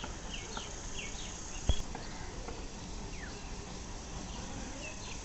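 Outdoor background noise with scattered short, high chirps, some sliding down in pitch, and one sharp knock just under two seconds in.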